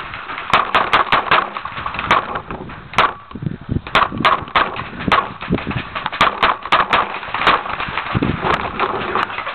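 Paintball markers firing, about twenty sharp pops a few per second at an uneven pace.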